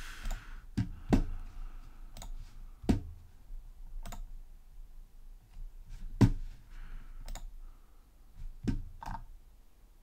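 Computer mouse clicking: about nine separate sharp clicks at irregular spacing, the loudest about six seconds in.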